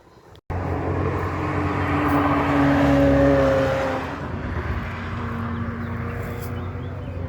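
Historic racing car's engine running hard as the car passes by on a hillclimb, starting abruptly about half a second in, loudest around three seconds in, then settling lower as it pulls away.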